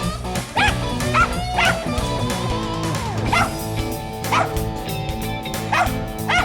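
Mountain feist barking treed, about seven barks spaced irregularly: the sign that it has a squirrel up a tree. Background guitar music plays under the barks.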